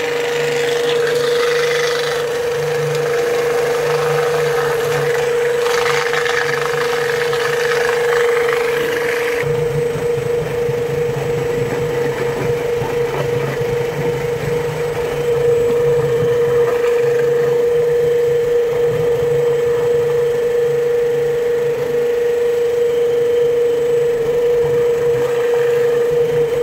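Picote Super Midi drain-cleaning machine running steadily, its motor spinning the cleaning shaft to cut roots in a clogged drain pipe: one steady hum, with extra hissing, grinding noise for about the first ten seconds.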